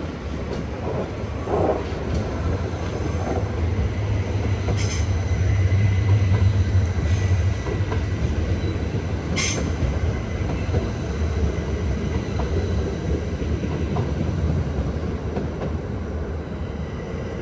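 Electric train of the Uetliberg line running on the track: a steady low rumble that swells for a few seconds near the middle. Two sharp clicks come about five and nine and a half seconds in, with a faint thin wheel squeal between them.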